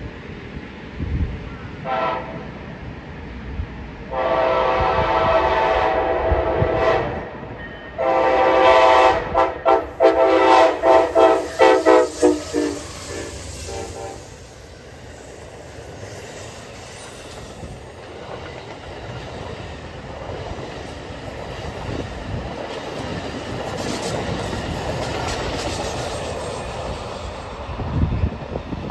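Amtrak passenger train's multi-chime air horn playing a horn show: a brief toot, a long blast, then a quick run of short, choppy blasts. Then the train rolls past, its wheels clattering over the rails.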